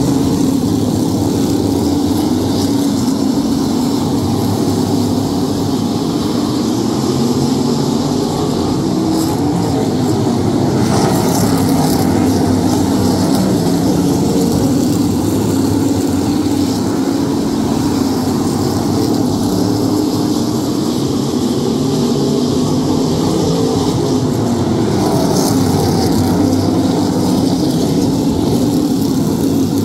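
A field of modified race cars running laps, their engines loud and continuous, rising and falling in pitch as the cars sweep past.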